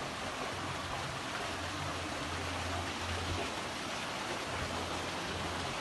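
A small waterfall and its stream pouring steadily, an even rush of water with no distinct splashes.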